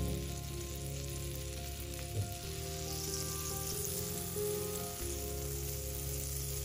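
Butter melting and sizzling in a hot nonstick frying pan, foaming as it spreads, with a steady hiss.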